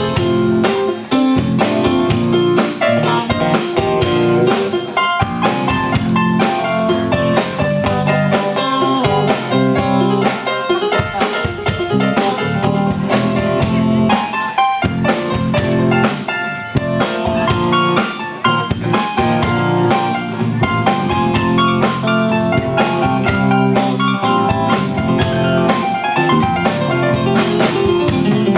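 Live rock band playing an instrumental break with no vocals, electric guitar to the fore over bass, keyboards and a Yamaha Recording Custom drum kit.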